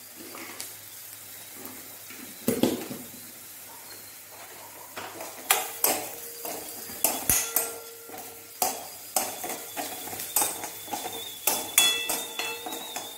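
A steel spoon stirring and scraping onions in a metal kadai: a single knock, then from about halfway a quick string of clinks and scrapes of spoon on pan, over a faint sizzle of onions frying in oil.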